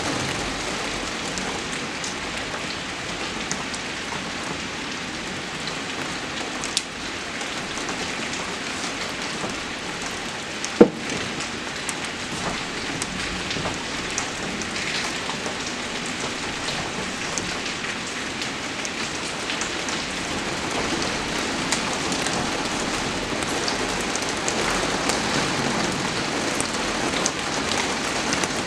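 Steady rain falling on a surface, an even hiss with small scattered drop ticks. A single sharp knock about eleven seconds in, and a fainter one about seven seconds in.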